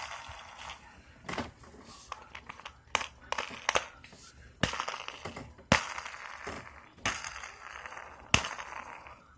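Fingers tapping and rubbing on a plastic lotion bottle close to the microphone: irregular sharp taps, a few much louder than the rest, with short stretches of scratchy rubbing noise between them.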